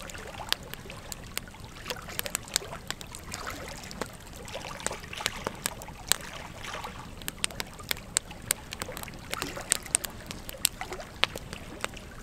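Wood fire burning: burning logs give irregular sharp crackles and pops over a steady soft rush of flame.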